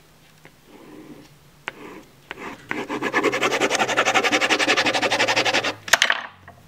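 Pen scribbling hard on spiral-notebook paper, crossing out a written line: a few light scratches first, then a long run of fast, even back-and-forth strokes. A single sharp knock near the end.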